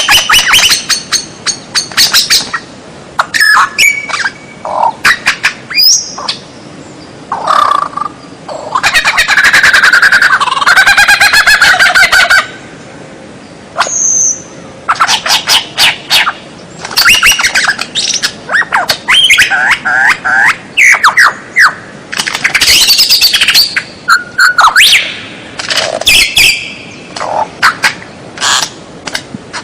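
White-rumped shama (murai batu) singing a long, varied song of loud clear whistles, rising and falling sweeps and sharp chips, with short pauses between phrases. About nine seconds in comes a fast rattling trill that lasts around three seconds.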